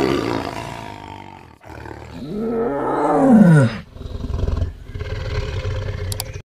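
Tiger roaring: a roar fading out, a second roar that rises and then falls in pitch, then a low rumbling growl that cuts off suddenly.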